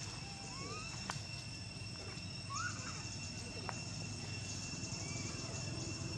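A baby macaque squealing: a few short, squeaky calls that rise in pitch, heard while it is being grabbed and dragged by an older monkey. A steady high insect drone runs underneath, with a couple of sharp clicks.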